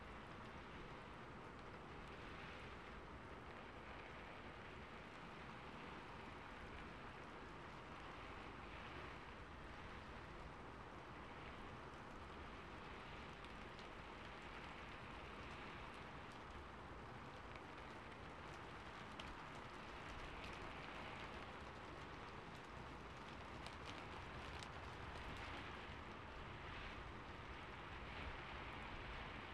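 Steady rainfall, a faint, even hiss of rain with no thunder.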